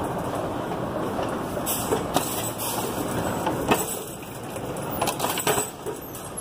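Store escalator running while carrying a rider up beside a shopping-cart escalator: a steady mechanical running noise with a few clicks and rattles.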